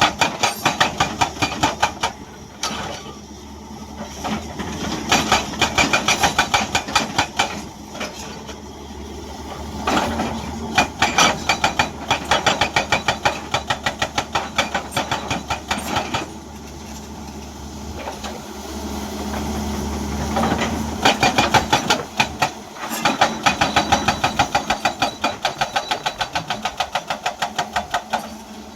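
Hydraulic rock breaker on a 2007 Hyundai 210 excavator hammering rock in about five bursts of rapid, even blows. The excavator's diesel engine runs steadily between the bursts.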